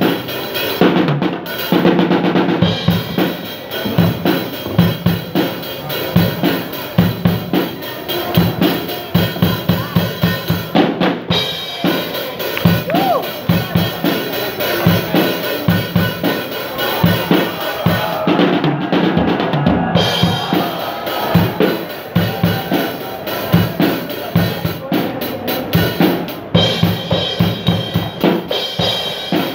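Drum kit playing a steady breakbeat, with kick drum, snare and rimshot hits keeping a fast, even rhythm.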